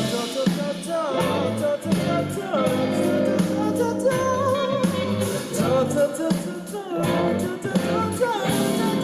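Live rock band playing: electric guitar over bass and drums, with singing.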